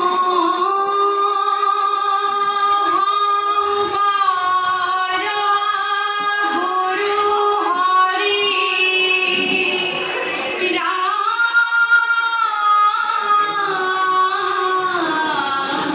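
A group of women singing an Assamese Dihanam devotional chant in unison, in long held notes that step up and down in pitch. After a brief break about ten and a half seconds in, the voices come back at a higher pitch.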